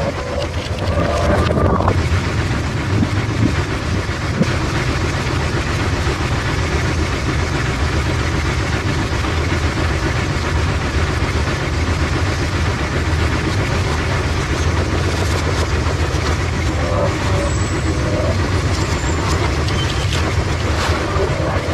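Automatic bowling pinsetter running through its cycle: a steady low motor drone with continuous mechanical rattling, as the sweep clears the lane and the deck sets a new rack of ten pins.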